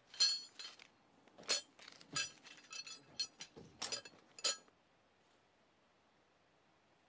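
Metal tent pegs clinking against one another as they are gathered up and dropped into a cloth bag: a dozen or so bright, ringing clinks that stop about two-thirds of the way through.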